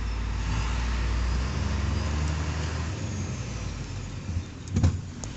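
Hino 500 FL 235 JW truck's six-cylinder diesel engine running on the move, heard from inside the cab. Its low drone drops about a second and a half in, and there is a sharp thump near the end.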